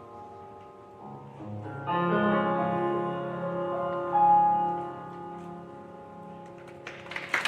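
Piano-led music on a held chord that enters about two seconds in, swells, then slowly fades as the piece ends. A few claps begin right at the end.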